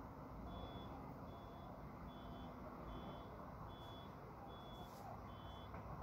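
Faint reversing beeper of a vehicle sounding at a steady pace, a little more than one high beep a second, starting about half a second in. A low steady rumble lies under it.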